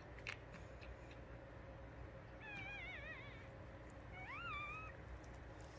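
Newborn Yorkshire terrier puppy crying: two short, wavering high-pitched squeals, the first about halfway through and the second about a second later.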